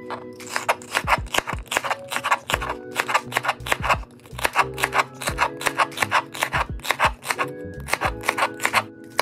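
Chef's knife slicing through celery stalks on a plastic cutting board: a quick, even run of crisp cuts, several a second, over soft background music.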